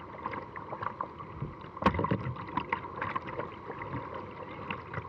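Whitewater rushing over river falls, with irregular splashes and knocks of water against a kayak's hull; the sharpest knock comes about two seconds in.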